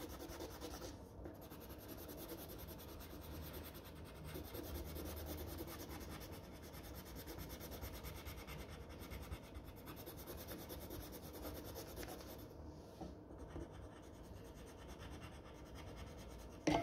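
Coloured pencil scratching steadily and faintly on paper as an area of leaves is shaded in.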